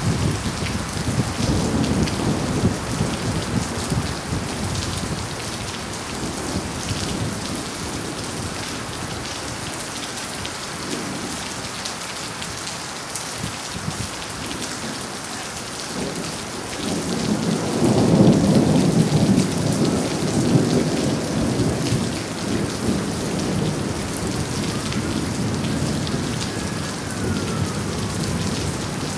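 Steady rain with rolling thunder from a severe thunderstorm. A rumble fades out over the first few seconds, and a louder roll of thunder builds a little past halfway, peaks, then slowly rumbles away under the rain.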